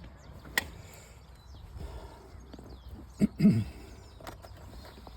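Metal parts of a steering-wheel quick-release hub being handled: a sharp click under a second in, then two dull knocks a little after three seconds.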